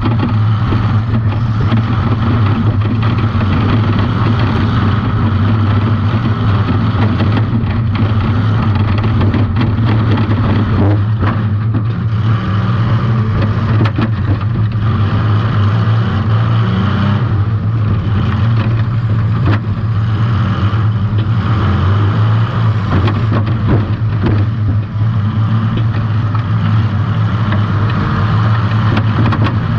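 Demolition-derby compact car's engine running steadily under load, heard from a camera mounted on the car, with a few short knocks along the way.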